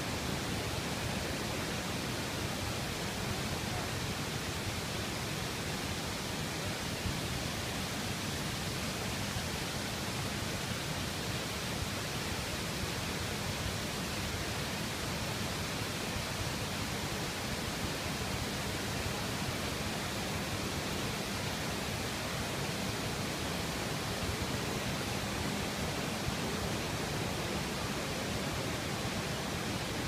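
Steady, unbroken rush of water from a waterfall's cascades.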